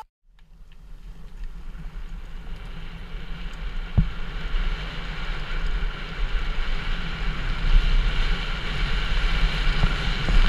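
Helmet-cam audio of a mountain bike riding a dirt trail: wind buffeting the microphone over the rumble of tyres and bike on the ground, fading in from silence and growing louder, with a sharp knock about four seconds in.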